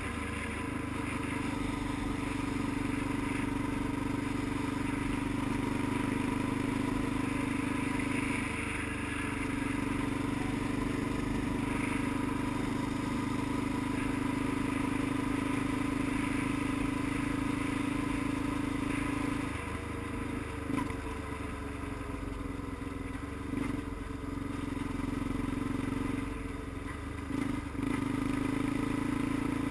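Road vehicle's engine running at a steady cruise, with road and wind noise. The engine note drops back about two-thirds of the way through.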